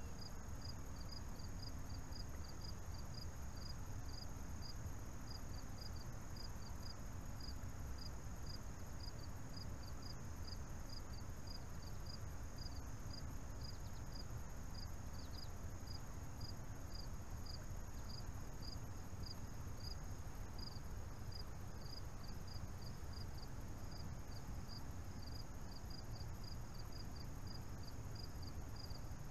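Crickets chirping at an even pace, about three chirps a second, over a continuous high insect trill, with a low steady rumble underneath.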